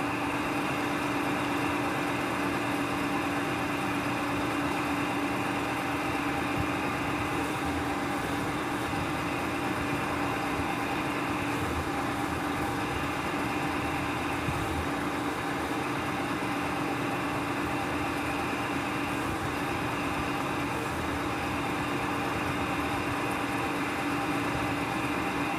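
Electric motor of a gauze cutting machine running with a steady hum.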